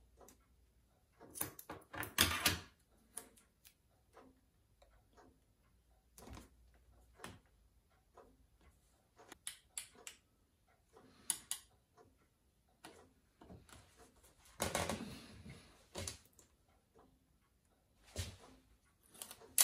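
Small handling sounds at a workbench: scissors cutting adhesive tape, then fingers, tape and thin metal tools on a glass plate, making scattered light clicks and taps. Two longer rustling scrapes, about two seconds in and about fifteen seconds in, are the loudest.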